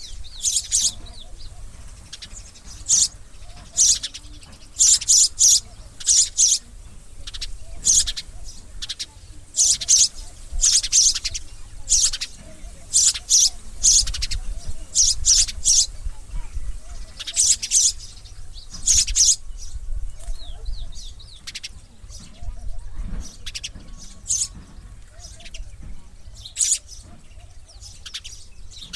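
Sparrow chirping repeatedly: short, sharp, high chirps, some single and some in quick runs of two to four, with brief gaps between.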